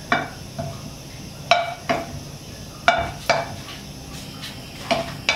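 Wooden spatula knocking against a nonstick wok as it turns pieces of Chinese sausage, about seven short ringing knocks, some in quick pairs, over a faint steady sizzle of the sausage frying in its own fat without added oil.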